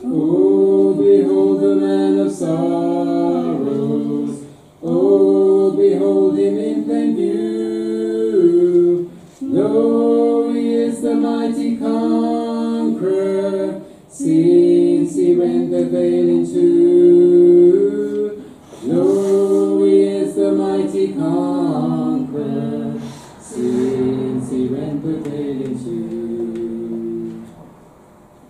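A man and a woman singing a duet unaccompanied, in held phrases of about four to five seconds with brief breaks for breath between them.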